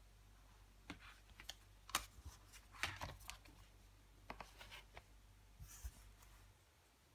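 Clicks, taps and rustles of a card-and-plastic CD digipak and its booklet being handled and set down on a table, in short irregular bursts; the sharpest clicks come about two and three seconds in.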